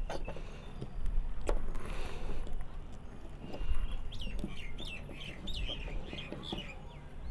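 Sharp metal clicks and scrapes from pliers gripping and bending the hard steel casing of a cylindrical lithium-ion laptop battery cell. In the second half a bird chirps a quick run of short calls.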